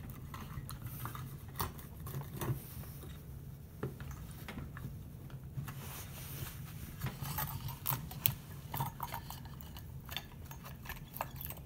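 Light, scattered clicks and taps of freshly cast lead sinkers and their wire loops knocking against the wooden mold as they are handled and worked out, over a steady low hum.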